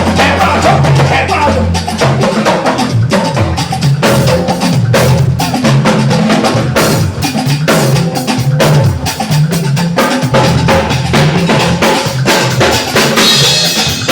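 Live band music: a drum kit keeps a steady beat under low sustained bass notes.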